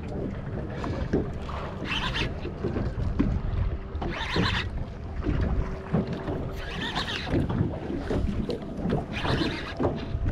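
Water splashing and slapping at the side of a small fishing boat every two to three seconds, with wind buffeting the microphone.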